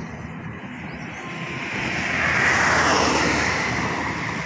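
A van passing close by on the highway: its engine and tyre noise swells about two seconds in, peaks and then falls away in pitch as it pulls ahead. Under it runs the steady hum of the riding two-wheeler's own engine.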